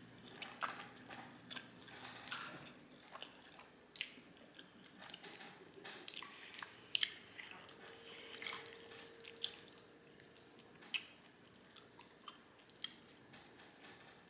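Close-miked wet chewing and smacking of a mouthful of jjajangmyeon, Korean black bean noodles in thick sauce, with many short irregular mouth clicks; the sharpest comes about halfway through.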